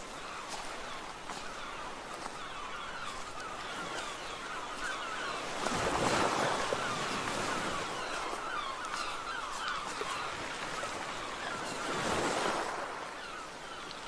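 Steady rush of stream water, swelling louder twice, about six and twelve seconds in.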